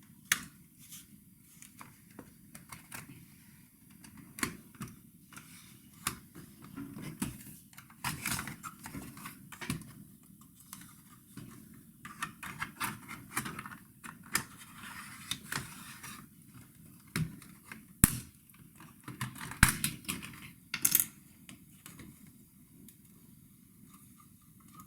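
Hands working on an opened laptop: irregular small clicks and light clatter of plastic parts, screws and tools, with stretches of scraping and a few sharper knocks in the last third.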